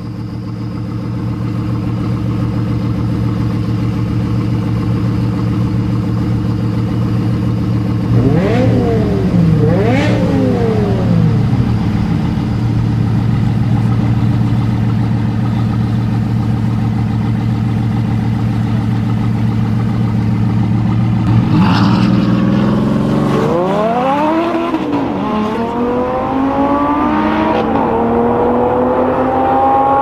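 Bugatti Veyron's quad-turbo W16 engine idling steadily, with two quick throttle blips about a third of the way in. Later it revs again and accelerates, its pitch climbing in steps through to the end.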